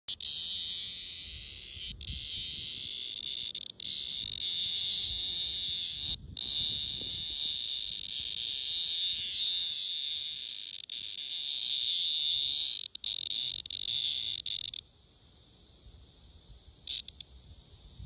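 A male black cicada (Cryptotympana atrata) buzzing loudly in a hand while clasped to a female: a steady, harsh, high buzz with a few split-second breaks. It cuts off about fifteen seconds in, and there is one short buzz near the end. The uploader takes the male's buzzing as a serenade to the female.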